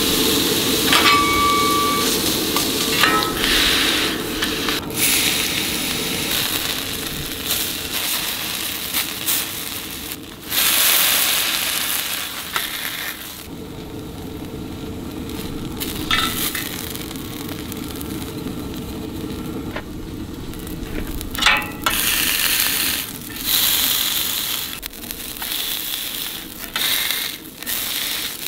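Squid skewers sizzling in oil on a hot flat steel griddle, the sizzle swelling louder at times. Occasional clicks and scrapes of a metal spatula on the plate, and a brief high squeak about a second in.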